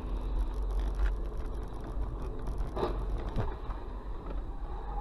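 Car driving on a wet road, heard from inside the cabin: a steady low rumble of engine and tyres, with two short knocks about three seconds in.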